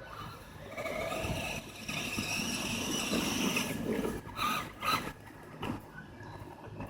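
Traxxas E-Maxx RC monster truck's electric drive whining for about three seconds as it runs, its pitch rising a little, followed by a few sharp knocks.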